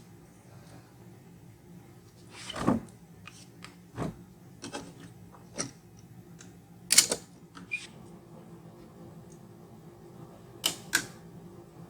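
Irregular light knocks and clicks, a few of them louder, over a faint steady hum.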